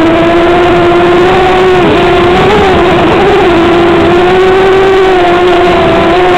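Electric motors and propellers of an FPV drone, recorded onboard, giving a loud steady whine at one pitch with overtones. The pitch dips and wavers briefly about two to three seconds in as the throttle changes, then settles again.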